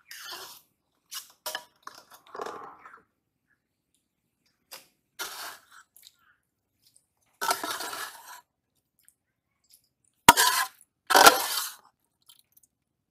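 A steel spoon scraping and knocking inside a steel pot as boiled shredded cabbage is scooped out, in several short separate scrapes. A sharp metal clank comes about ten seconds in, followed by a louder scrape.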